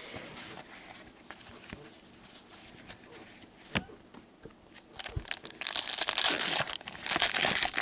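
O-Pee-Chee hockey card pack wrappers being handled and then crinkled and crumpled, with quiet rustling and a few clicks at first and loud, dense crinkling from about five seconds in.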